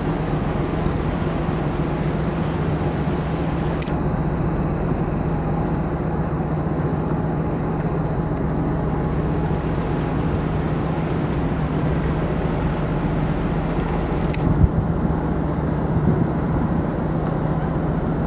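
Steady low drone of a ferry's diesel engines, a continuous hum with noise over it, heard as the ship manoeuvres close by.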